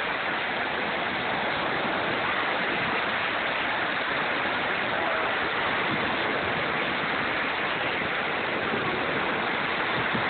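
Small waves breaking and washing up on a sandy beach: a steady rush of surf.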